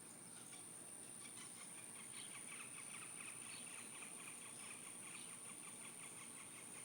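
Faint outdoor wildlife sound: a rapid, even chirping trill that builds about a second and a half in, over a steady high-pitched whine.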